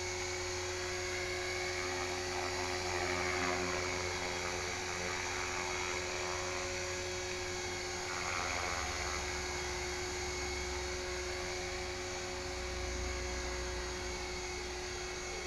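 HK-450GT electric RC helicopter hovering: the steady high whine of its brushless motor and gears over the rotor sound, with a couple of brief swells in pitch as the model is held and trimmed in the hover.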